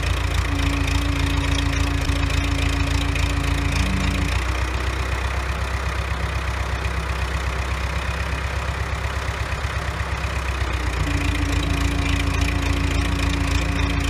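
The engine of a Pettibone telescopic-boom forklift running steadily with an even pulse. Its note changes from about four seconds in and settles back about eleven seconds in.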